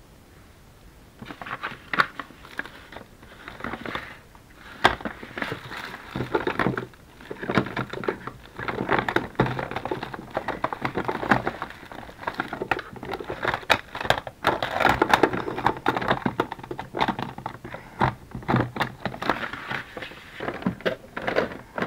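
Paper and plastic craft supplies being handled and rummaged through on a desk: crinkling and rustling with many small clicks and knocks, starting about a second in.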